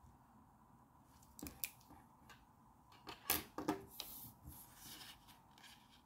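Sheet of card and a steel ruler being handled on a tabletop: a few light clicks about a second and a half in, a cluster of sharper clicks and knocks past the halfway point, then the paper sliding and rustling briefly.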